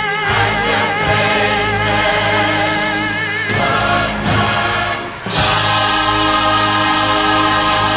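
Choir and orchestra holding sustained chords, the voices singing with vibrato; a fuller, brighter chord comes in suddenly about five seconds in.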